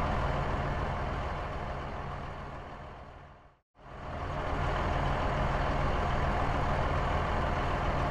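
A car engine running as a hatchback drives away, fading out to a brief silence about three and a half seconds in. Then a similar steady motor-vehicle sound fades back in and holds steady.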